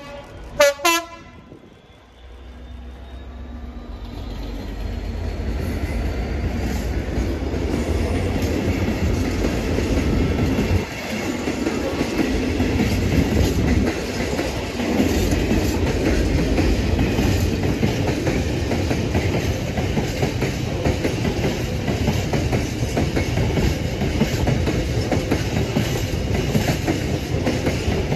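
A diesel freight locomotive gives a short horn blast about a second in. A long rake of empty flat wagons then rolls past close by in a steady rumble, with wheels clicking over the rail joints. The rumble swells over the first few seconds and then holds steady.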